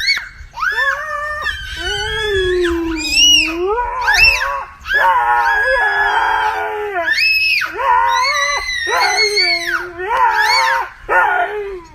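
A dog howling and a baby girl squealing along with it, long wavering cries that glide up and down and overlap almost without a break.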